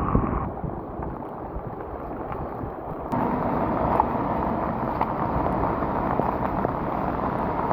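Wind rushing over the microphone together with rain and water noise, recorded while riding a bicycle in heavy rain. The sound changes suddenly about half a second in and again about three seconds in.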